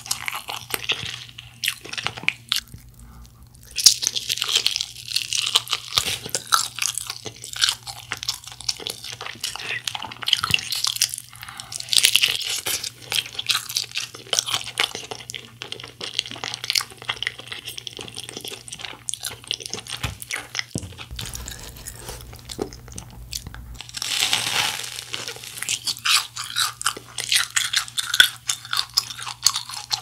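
Crunchy bites and chewing of a glazed fried chicken drumstick: dense crackling of the fried crust, with louder crunches a few times along the way.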